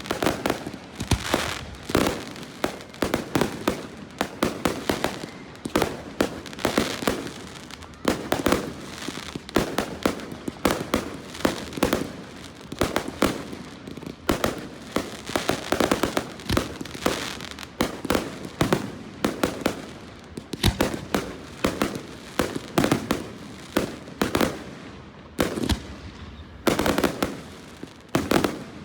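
Fireworks display going off nonstop, with sharp bangs of shells bursting several times a second amid crackling.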